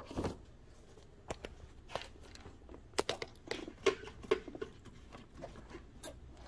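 Scattered clicks, knocks and rustles of a hand handling a corrugated orange high-voltage cable and its plastic fittings, with a few louder clicks about three to four seconds in.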